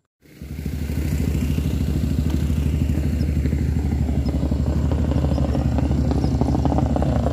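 A tuned racing motorcycle engine running steadily with a fast, even beat, starting just after a cut. It is the engine said to make a strange noise after its setup.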